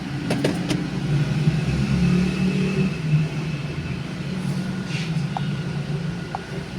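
Honda City GM's four-cylinder petrol engine idling steadily, a car with a slight misfire, with a few sharp clicks about half a second in.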